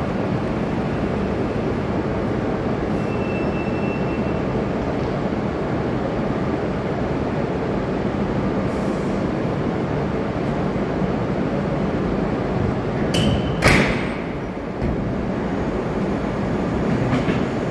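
A steady rumble as an E6 series Shinkansen moves slowly up to an E5 series set to couple, then one sharp clank about thirteen seconds in as the couplers meet.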